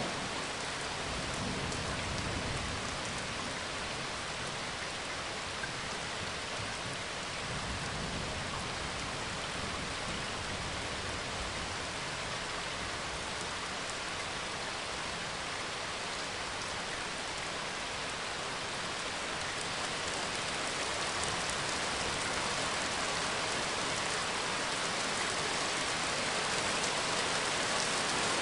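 Steady rain falling, a recorded rain-and-thunder ambience, with low rumbles of thunder in the first few seconds and again about eight seconds in; the rain grows slightly louder near the end.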